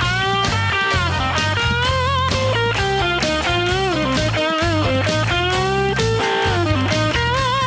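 Electric guitar playing a lead solo, with many string bends and vibrato, over a rock backing of bass and drums.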